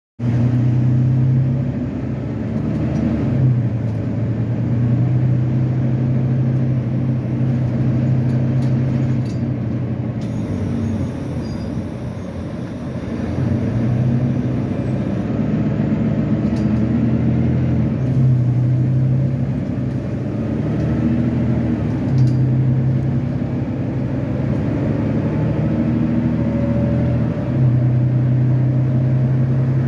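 Volvo B9TL double-decker bus's six-cylinder diesel engine running under way, its low note stepping up and down every few seconds as the bus accelerates, changes gear and eases off.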